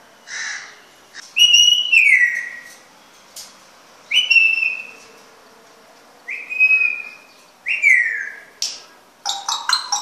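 African grey parrot whistling: about four loud, clear whistles, some held level and some sliding down in pitch. Near the end come a few quick, harsher short calls.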